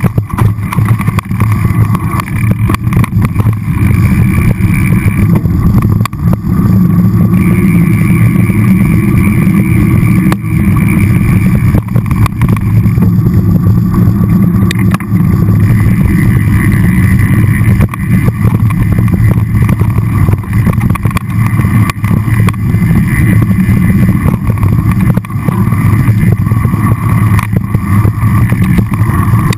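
A mountain bike rolling fast downhill over rocky dirt singletrack: a loud, steady wind rumble on the microphone with frequent knocks and rattles as the bike hits bumps and rocks.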